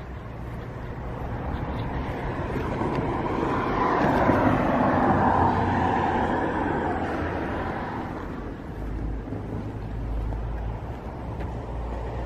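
A road vehicle passing by: its noise swells to its loudest about four to six seconds in, then fades. Low rumble underneath.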